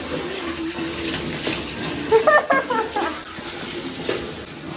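Water poured from a plastic mug over a small dog during a bath, splashing on a tiled bathroom floor. About two seconds in, a short voice-like sound rises above the water.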